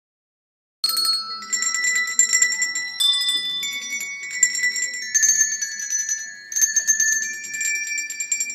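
A group of children's coloured handbells ringing a melody, notes and chords changing every half second or so and each tone ringing on under the next, starting about a second in.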